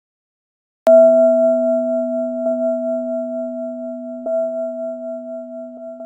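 A bell struck once about a second in, ringing with a few clear tones and fading slowly. An echo effect repeats the strike more faintly, about every two seconds.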